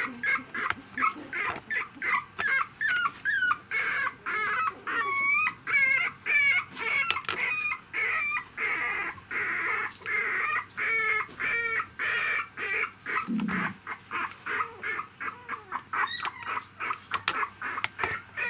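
Three-week-old poodle puppies whimpering: an unbroken run of short, high-pitched squeaks and whines, several a second, some rising and some falling in pitch.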